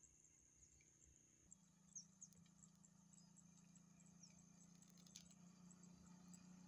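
Faint, steady, high-pitched insect buzz over the fields. About a second and a half in, the low hum of an approaching motorbike engine comes in and grows slowly louder, with a few faint chirps and ticks.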